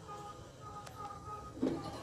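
Soft background music with steady held notes. A short, louder vocal-like sound comes near the end.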